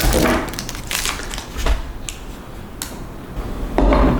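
Handling noise of PC parts: a series of sharp clicks, knocks and rustles, with a louder, deeper bump near the end.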